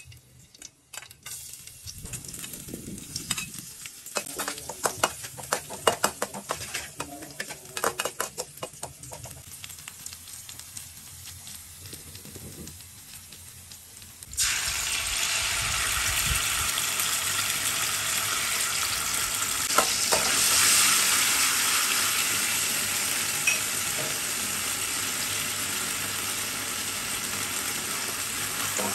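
Chopped garlic and chilies frying in oil in an aluminium wok. For the first half, quieter frying with many clicks and scrapes of stirring. About 14 seconds in, a loud, steady sizzle sets in.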